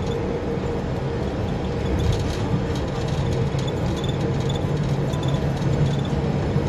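Steady low rumble of moving road traffic, with a faint hum over it.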